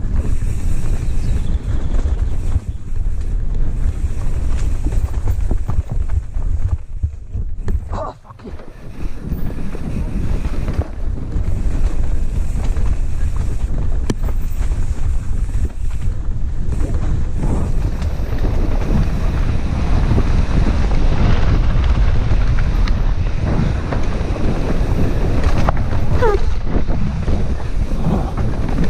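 Dirt bike engine running under throttle, smothered by heavy wind buffeting and low rumble on the onboard microphone. The engine and rumble drop away for about a second some eight seconds in, then come back.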